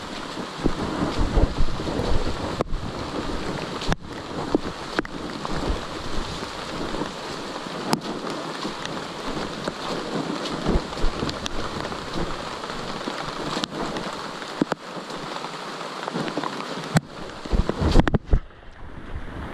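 Steady rushing noise on a handheld camera's microphone carried on foot, with low thumps and a few sharp knocks from handling, and a cluster of knocks near the end as a finger rubs over the lens.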